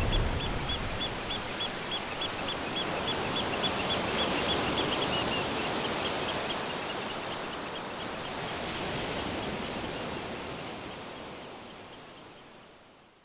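Outdoor ambience: a steady rushing noise that swells and eases and fades out near the end. Over it, a bird chirps in a quick, even series, about three calls a second, dying away after about six seconds.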